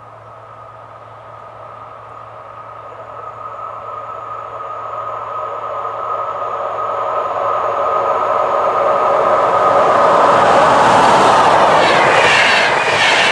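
VR double-deck InterCity train approaching along the track, a steady whine and rumble growing louder over about ten seconds. It then rushes past close by, with the clatter of wheels over the rail joints near the end.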